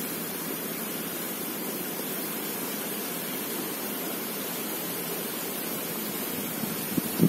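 Steady rushing background noise with a short thump near the end.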